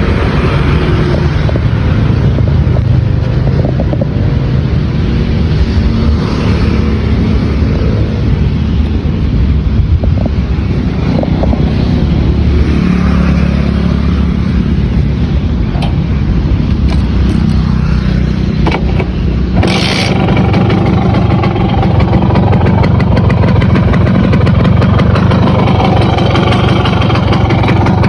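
Simson S51's single-cylinder two-stroke engine, fitted with a VAPE electronic ignition, running steadily. About two-thirds of the way through the sound changes suddenly, and the engine runs a little louder and faster.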